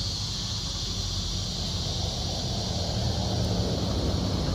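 Steady outdoor background: an even, high drone of insects over a constant low rumble.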